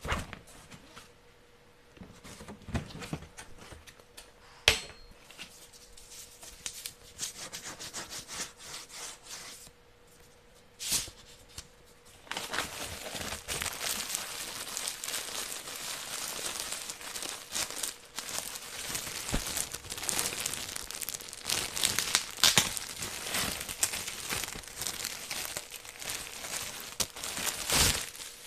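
Close-up handling sounds: scattered rustles of stiff fabric with a few sharp clicks or knocks, then from about halfway through a continuous crinkling and rustling of a clear plastic bag as a wrapped shirt is handled and unwrapped.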